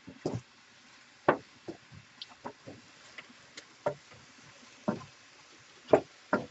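A utensil knocking against the pan in irregular clacks as stew beef is stirred and turned while browning. The loudest knocks come about a second in and near the end.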